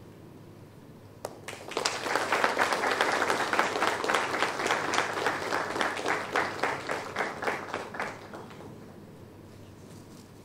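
Audience applauding: the clapping starts about two seconds in and dies away after about eight seconds.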